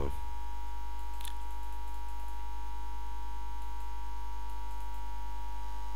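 Steady electrical mains hum with a few faint, steady whining tones above it, picked up by the recording microphone. There is one faint click about a second in.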